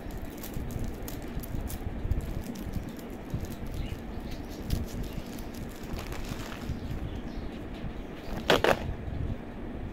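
Light crinkling and rustling of a small clear plastic bag handled between the fingers, with one louder, brief plastic clatter about eight and a half seconds in as a hand comes down on the red plastic container lid.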